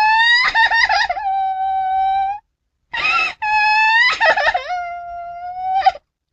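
Baby crying sound effect: a long high-pitched wail that wavers at first and then holds one steady note, a short sob about three seconds in, then a second long wail of the same kind that rises sharply just before it cuts off near the end.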